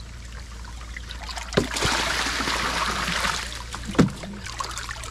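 Shallow water splashing and pouring as it is scooped and tipped with a plastic tub. A rush of pouring water lasts about two seconds in the middle, with sharp knocks about one and a half and four seconds in.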